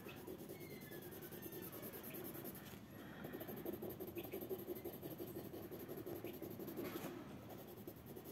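Coloured pencil shading on paper in quick back-and-forth strokes, a faint scratchy rubbing that grows a little louder midway.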